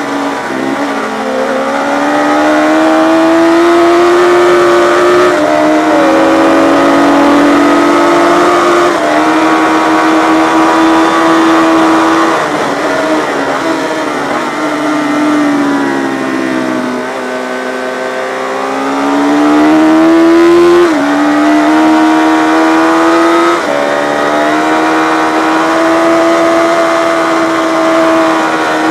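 Yamaha FZ600 race bike's four-cylinder engine under hard acceleration. Its pitch climbs steadily and drops sharply at each upshift, then falls away as the bike slows through the middle of the stretch, and climbs through the gears again.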